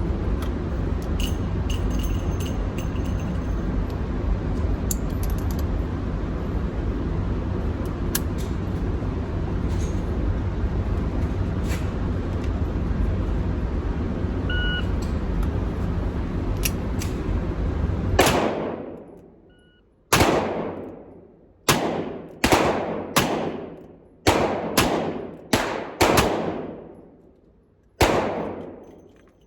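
A steady rushing noise for about eighteen seconds, then a string of about ten double-action revolver shots at uneven intervals, each a sharp crack with a ringing tail.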